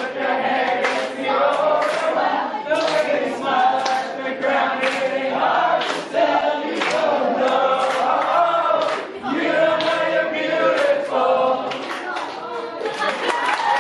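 A group of male voices singing together.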